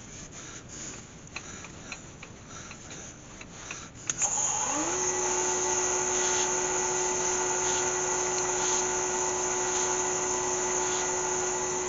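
Faint cloth rubbing and handling clicks on a wood lathe workpiece. About four seconds in, the Galaxy DVR lathe's motor switches on, its whine rising quickly in pitch as it comes up to speed, then running steadily with the sealed workpiece spinning.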